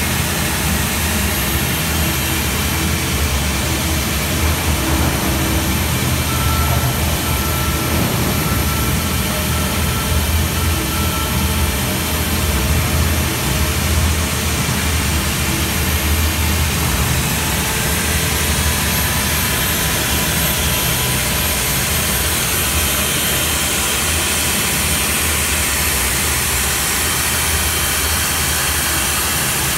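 Stand-mounted diamond core drill running steadily, its large core bit boring horizontally into a reinforced concrete wall: a loud, even machine noise with no breaks.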